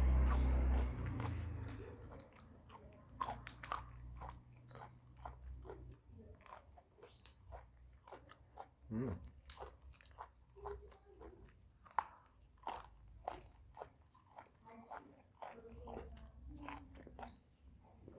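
Close-up crunching and chewing of raw petai (stink beans): many short, crisp crunches, several a second, with wet chewing between them. A dull low rumble sits under the first second or two.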